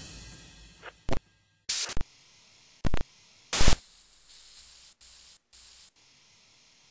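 The tail of a drum-heavy music track fading out, then a handful of short bursts of TV-style static hiss, the loudest about three and a half seconds in, over a faint steady hiss.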